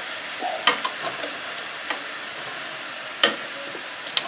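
Rabbit pieces sizzling as they brown in olive oil in a stainless steel sauté pan, with metal tongs clicking against the pan a few times as the pieces are turned; the loudest click comes a little past three seconds in.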